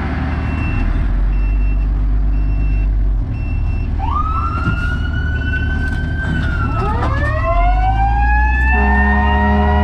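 Fire ladder truck's engine running, with a short high beep repeating in the first few seconds. About four seconds in, a siren rises in pitch and holds, then falls while a second siren slides slowly upward. Near the end a horn sounds a steady chord.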